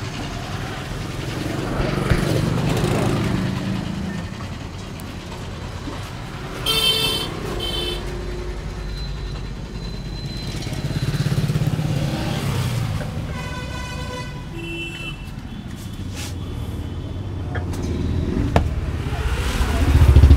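Road traffic going by, with vehicle engines swelling and fading several times and two brief horn toots, one about a third of the way in and one about two-thirds through.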